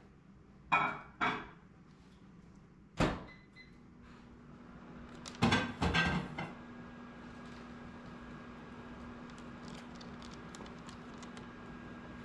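A few sharp household knocks and thumps, the loudest a quick cluster about six seconds in. From about three and a half seconds a steady appliance hum starts and runs on.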